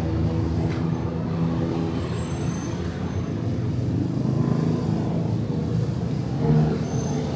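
Busy city street at night, with motor traffic running past and a steady low engine hum.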